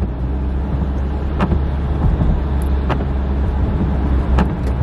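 Steady low rumble of a car driving on the road, heard inside the cabin, with a few faint ticks about every second and a half.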